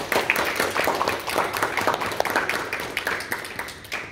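Audience applauding: many hands clapping at once, slowly thinning toward the end.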